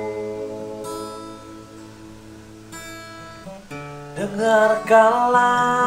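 An acoustic guitar strumming chords that ring out, with fresh strums about one and three seconds in. A singing voice comes in about four seconds in, over the guitar.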